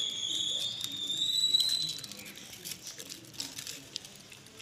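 A steady high whistle-like tone, rising slightly, that stops about two seconds in; under and after it, a puppy eating from a steel bowl, with small clicks and smacks of chewing and lapping.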